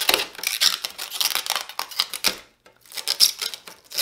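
Protective plastic film being peeled and pulled off a clear acrylic turntable dust cover: a crackling, ripping rasp in irregular bursts, with a short pause about two and a half seconds in.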